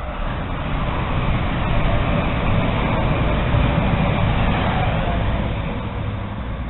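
A motor vehicle passing by, its engine rumble and tyre noise swelling to a peak a few seconds in and then fading away.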